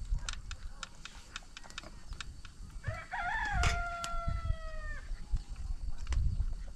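A rooster crowing once: a single drawn-out call of about two seconds, starting about three seconds in and sagging slightly in pitch before it cuts off. Before it, a scatter of short sharp clicks.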